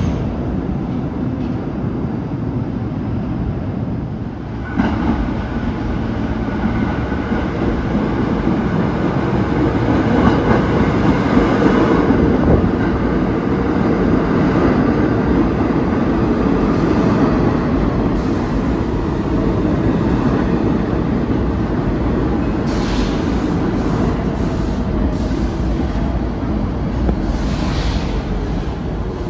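Pullman-Standard R46 subway train running into the station along the platform, a loud rumble of wheels on rail that swells sharply about five seconds in and is loudest a few seconds later. Two short high-pitched bursts sound near the end.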